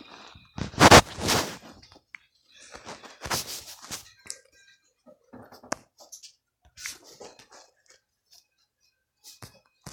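Irregular scratching and rustling strokes of drawing by hand on paper, the loudest about a second in.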